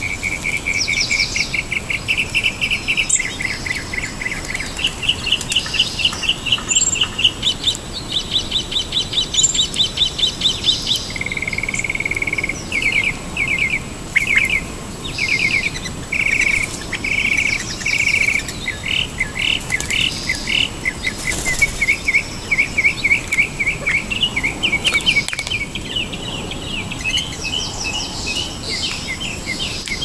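A songbird singing without pause, repeating each short note or trill many times before switching to a new pattern every second or two.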